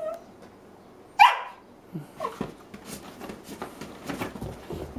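Dogs playing rough: a sharp, high yelp that falls in pitch about a second in, then a string of short yips and barks mixed with scuffling as they grapple.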